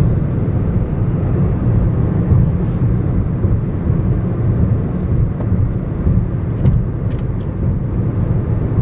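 Steady low road and engine rumble heard inside a car's cabin while driving at highway speed.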